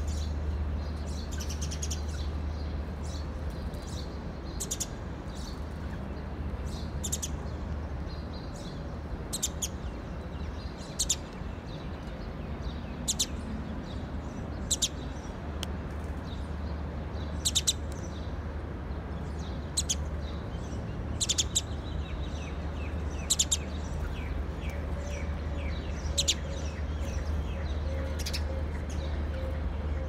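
Sparrows chirping in single sharp cheeps, one every second or two, with a quick run of notes near the end, over a steady low rumble.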